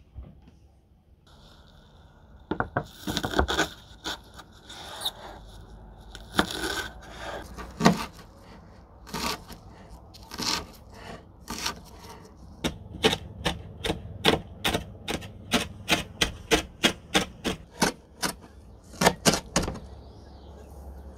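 Kitchen knife chopping fresh wild garlic (ramsons) leaves on a cutting board. A few uneven cuts come first, then a quick, even run of chops at about three or four a second that stops shortly before the end.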